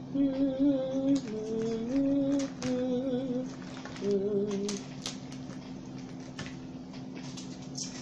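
A woman humming a short wavering tune of several held notes for about five seconds, then sharp clicks and cracks of crab legs being broken open, over a steady low background hum.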